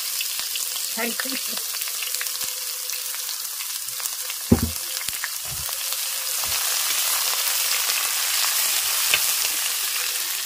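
Sliced onions sizzling in hot oil in an aluminium pot, stirred with a steel spatula that scrapes and clicks against the pot. One sharp knock about four and a half seconds in; the sizzle grows a little louder past the halfway point.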